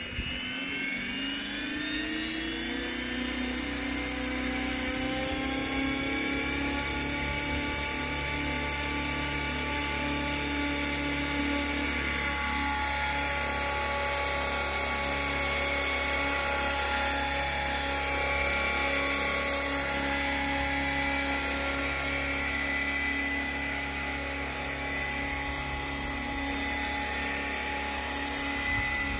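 Align T-Rex 500 electric RC helicopter in a scale AS350 Ecureuil body, its motor and rotor spooling up with a rising whine over the first couple of seconds, then a steady high whine with rotor whir as it lifts off and hovers.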